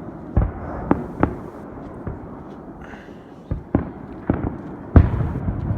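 Aerial fireworks shells bursting in an irregular string of about eight booms, with a rumbling haze between them and the loudest burst about five seconds in.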